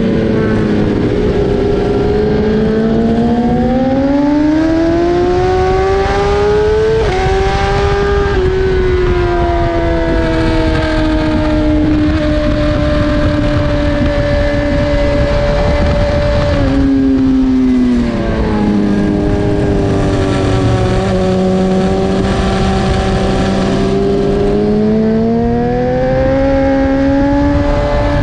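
BMW S1000RR inline-four sport bike engine at racing speed, its pitch climbing and falling with the throttle and stepping abruptly at gear changes, over constant wind rush.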